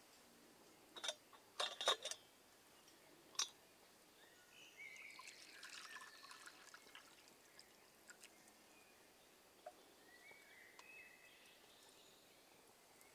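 A few sharp metal clinks from a kettle and its lid, then hot water poured from the metal kettle into a wooden kuksa cup for about three seconds.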